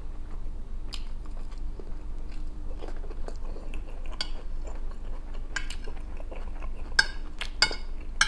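Close-up chewing of rice, vegetables and bread, with a metal spoon clinking and scraping on a plate, the sharp clicks coming thicker near the end. A steady low hum runs underneath.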